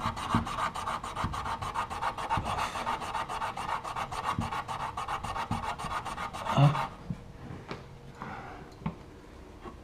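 Rapid back-and-forth scraping or rubbing, about ten strokes a second, which stops with a thump about seven seconds in; fainter rustling follows.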